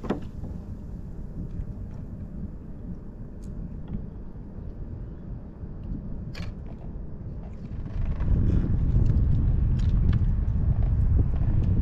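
Wind buffeting the microphone over water lapping at a fishing kayak's hull, a steady low rumble that grows clearly louder about eight seconds in, with a few faint clicks.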